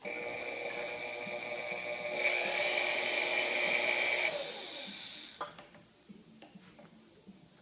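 Milwaukee 4203 magnetic drill press motor starting abruptly and running with a steady whine, getting louder about two seconds in, then winding down in pitch after about four seconds, with a sharp click as it slows.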